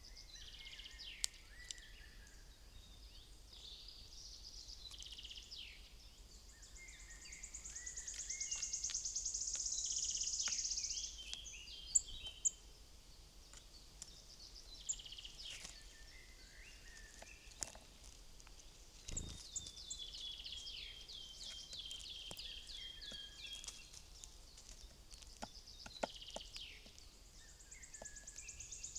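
Small woodland songbirds calling and singing at a feeder: short chirps throughout, a long fast high trill, and later a quick run of repeated notes that slide slightly downward. Scattered sharp taps and clicks come in between.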